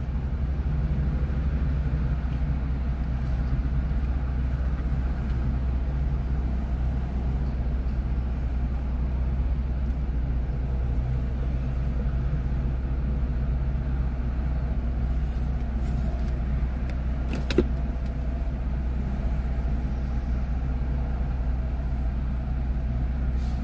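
Steady low rumble of passing freeway traffic, with one sharp click about three-quarters of the way through.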